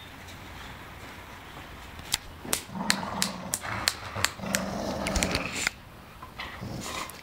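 Bulldog growling in two stretches as it tugs on a stick gripped in its jaws, with sharp clicks and knocks from about two seconds in.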